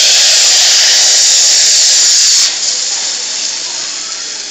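Soaked, boiled fenugreek seeds dropped into hot mustard oil: a loud burst of sizzling as the water left in the seeds hits the oil, easing to a steadier, quieter fry about two and a half seconds in.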